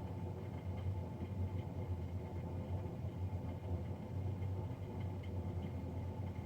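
Navien NCB-240 combi boiler's combustion fan running with a steady low rumbling drone and a faint higher whine above it. This is the loud fan noise the owner is documenting.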